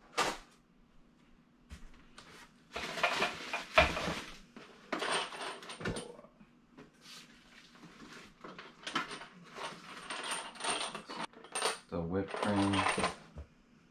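Packaged goods being rummaged through and handled, with rustling packaging and light clinks of plastic cutlery, in several bursts.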